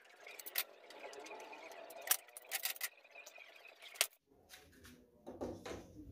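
Bar clamps being handled and tightened against a board: scattered light clicks and knocks, the sharpest about two and four seconds in.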